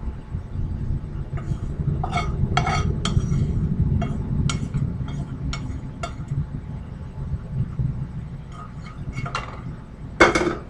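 A utensil scraping and clinking against a skillet and a ceramic bowl as sautéed egg and onion are scraped out of the pan, with scattered sharp clicks and a louder clatter near the end.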